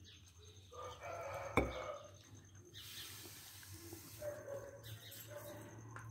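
A rooster crowing, one call of about two seconds starting about a second in. One sharp knock lands in the middle of it.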